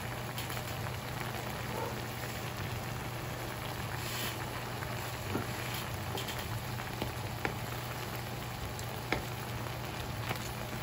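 Shrimp frying in garlic-butter sauce in a pan: a steady sizzle with scattered small pops and crackles.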